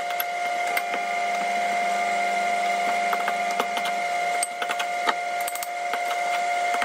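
A fork scraping and clicking against a glass bowl as boiled potatoes and minced meat are mashed and mixed, over a steady hum with a high whining tone from some appliance.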